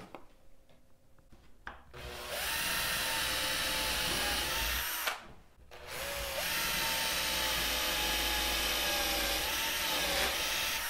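Cordless drill boring holes through a painted wooden board, running steadily in two stretches of about three and four seconds with a short stop between. The first starts about two seconds in, after some quiet handling.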